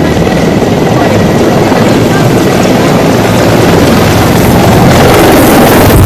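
Military attack helicopters flying low, their rotors and turbines running loudly and growing louder as one passes just overhead near the end, with rotor downwash buffeting the microphone.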